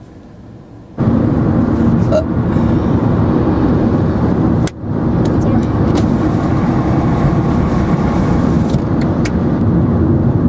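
Steady road noise of a moving car heard inside the cabin, jumping suddenly much louder about a second in and dipping briefly once near the middle, with a few faint clicks.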